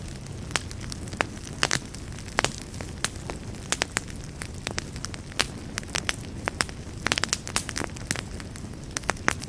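Wood fire burning in a fireplace: a steady low rumble with irregular sharp crackles and pops, several in quick succession near the end.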